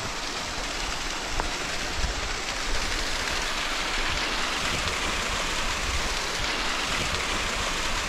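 Steady rushing of flowing water from a rocky mountain stream and small waterfall: an even, unbroken hiss with no pauses.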